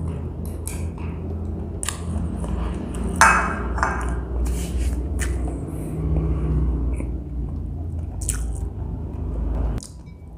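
Close-miked chewing and wet mouth clicks of someone eating noodles, with a louder smack about three seconds in, over a steady low hum. Everything cuts off suddenly near the end.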